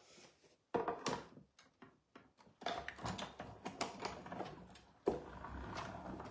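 Hand-cranked die-cutting machine in use: a few clicks and knocks as the cutting plates and die are handled, then a run of rattly clicking and a steadier grinding from about five seconds in as the sandwich is cranked through the rollers.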